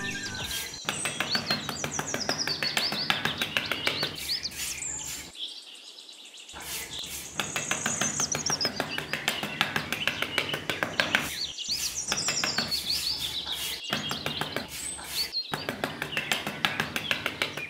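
Birds chirping with many short, quick calls, over a dense run of small clicks and scrapes. The sound thins out briefly about five to six seconds in.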